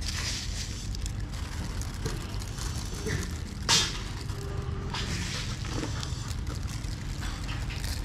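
Sprouted rice seed being scattered by hand onto mud-filled seedling trays: soft, irregular rustling and pattering over a steady low rumble, with one sharper rustle or knock about four seconds in.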